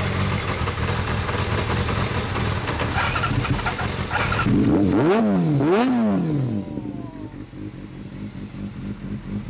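Kawasaki ZRX400 inline-four idling through an aftermarket chrome slip-on exhaust. About five seconds in the throttle is blipped twice in quick succession, the revs rising and dropping back each time, before the engine settles back to idle.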